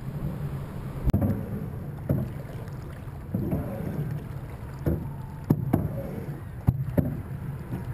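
Choppy water slapping against the hull of a small boat, with a steady wind rumble on the microphone and about eight irregular sharp knocks.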